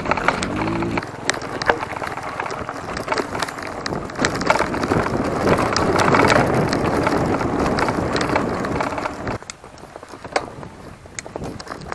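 Giant Talon 3 hardtail mountain bike ridden over a rough trail: a steady rush of tyre noise, with frequent sharp clicks and rattles from the bike over bumps. The rush drops off sharply about nine seconds in.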